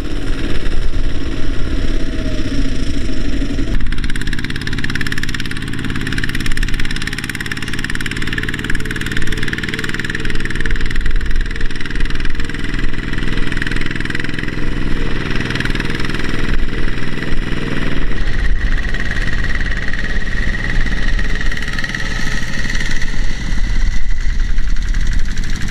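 Single-cylinder diesel engines of two-wheel walking tractors running steadily while pulling trailers loaded with rice sacks through a soft field. The engine sound changes abruptly about four seconds in and again past the middle, as a different machine is heard.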